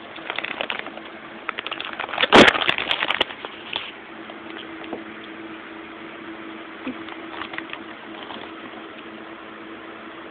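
Handling noise from a phone camera held up close: rubbing and clicks on the microphone, with one loud knock about two and a half seconds in. After about four seconds only a steady low hum with a few faint clicks remains.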